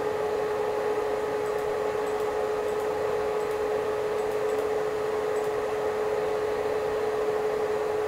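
Cooling fan of an ACME Dynamo 250 DMX scanner light running with a steady whirring noise and a steady hum-like tone; the fan is very noisy. Faint light ticks come now and then.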